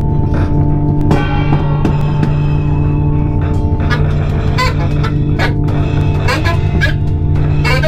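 Live noise-music set: a loud, sustained low drone of many layered tones, with irregular sharp clicks and crashes over it.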